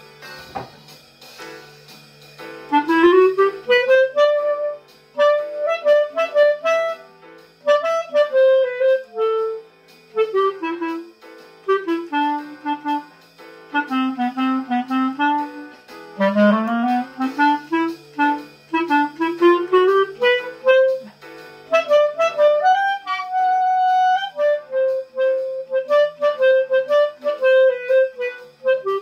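Clarinet playing a solo melody in quick runs up and down, entering about two and a half seconds in, over a quiet, steady accompaniment. There is a thump about half a second in, before the playing starts.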